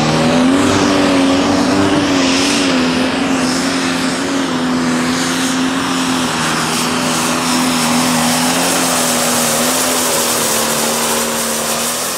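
Pro Stock pulling tractor's turbocharged diesel engine at full throttle during a pull. Its revs climb in the first second, then hold high and nearly steady.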